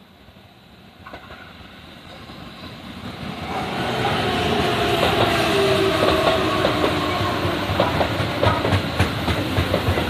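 Keihan Main Line electric train approaching over about three seconds and then passing close by, its wheels clicking over the rail joints, with a slowly falling whine.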